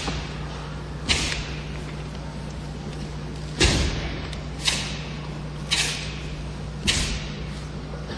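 Five sharp slapping impacts from a taekwondo demonstration, about a second apart, the loudest about three and a half seconds in, each echoing briefly in a large hall.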